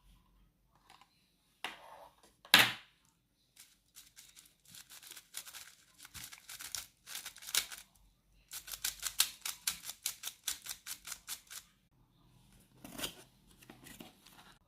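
Handling noise from a small object: scattered clicks and rustles, one loud sharp snap a few seconds in, and near the middle a run of rapid, even clicking, about eight clicks a second, like a ratchet or a mechanism being turned.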